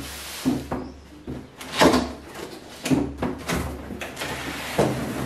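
Cardboard box being opened and handled on a table: a series of sudden scrapes and knocks of cardboard flaps, the loudest about two seconds in.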